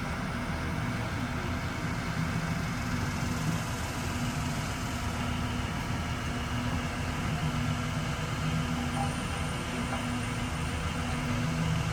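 A large engine idling steadily, typical of the machinery at a tree removal.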